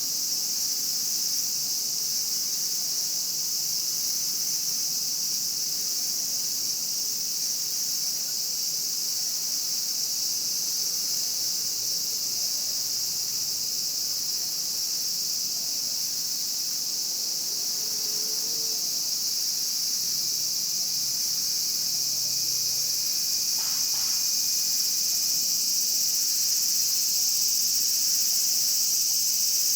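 Chorus of Japanese cicadas in one continuous high-pitched drone, growing slightly louder near the end.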